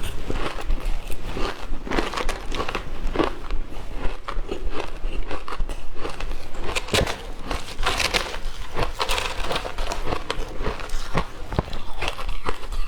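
Shaved ice dusted with matcha and milk powder being bitten and chewed close to the microphone: a continuous run of irregular crunching and crackling.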